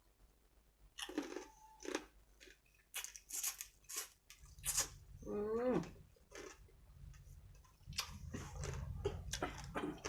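Close-up crunching and chewing of field crab in a spicy seafood salad, with irregular sharp crunches as the shell is bitten. A short wavering, voice-like sound comes a little past the middle.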